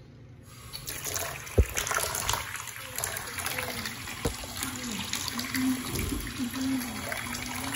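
Tap water running into a bathtub, starting about half a second in, with a sharp knock a second or so later and a smaller one near the middle.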